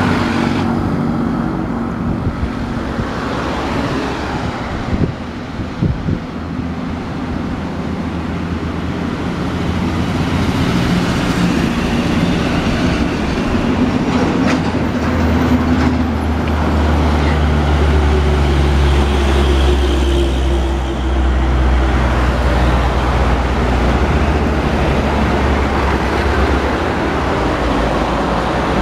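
Roadside highway traffic, with heavy diesel trucks passing close by. A deep, loud truck engine drone builds from about halfway and lasts some ten seconds before easing off near the end.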